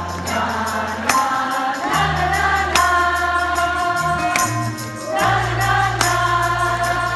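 Women in a concert audience singing along in chorus, long held notes over a live rock band's sustained bass notes and steady beat.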